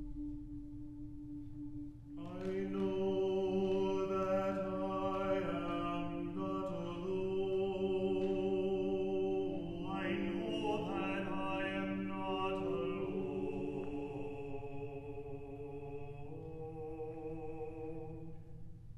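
Mixed SATB choir singing slow, sustained chords with organ, on the line 'I know that I am not alone'. A single held note sounds alone at first, and the full choir enters about two seconds in.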